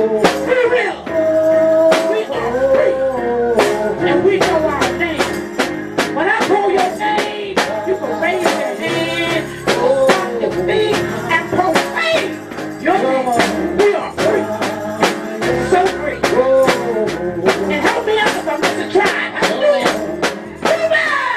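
Group of singers with a lead voice on microphone singing a lively religious song, over steady rhythmic hand clapping.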